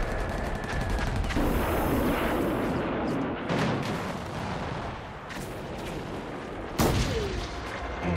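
Battle sounds: dense gunfire and explosions, with several sharp shots or blasts standing out and the loudest blast about seven seconds in.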